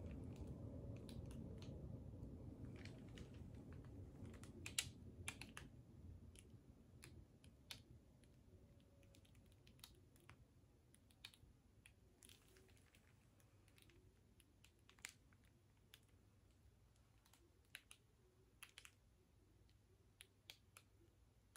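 Near silence with faint, scattered small clicks and taps, about fifteen of them at uneven intervals. A low hum fades away over the first several seconds.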